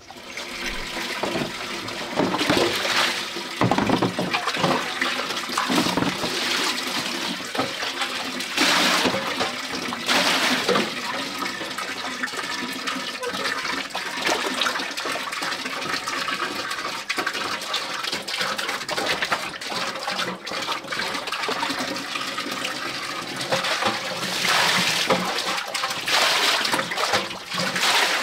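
Water running steadily from a pipe into a pot, with splashing and sloshing as fish are handled in a wicker basket and water is poured into a plastic basin. Louder surges of splashing come and go several times.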